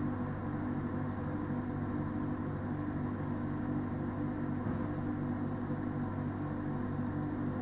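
A parked delivery lorry's diesel engine idling together with its trailer refrigeration unit running: a steady low hum with a regular throb.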